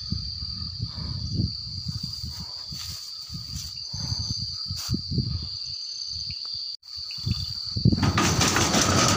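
Night insects trilling in one steady, unbroken high tone, over uneven low rumbling on the microphone. The sound cuts out for a moment near seven seconds, and a louder rustling hiss comes in near the end.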